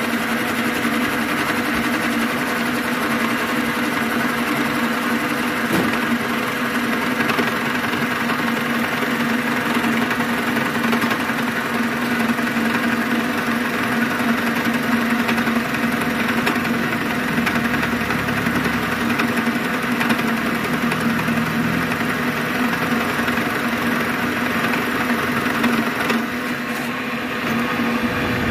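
Boring machine motor running steadily while its boring bar cuts metal inside a motorcycle cylinder bore, a continuous mechanical hum. It eases slightly near the end as the cutter rises out of the bore.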